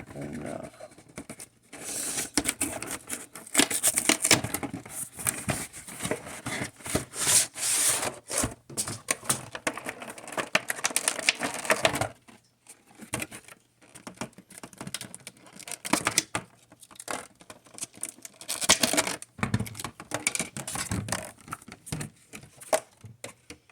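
Pokémon card box packaging being torn open and handled: crinkling, tearing and tapping in busy stretches, with a short pause near the middle.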